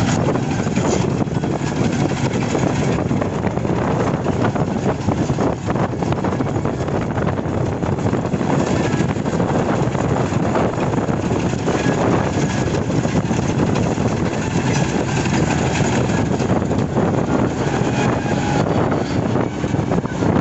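Yanmar combine harvester running steadily, a loud, constant machine noise.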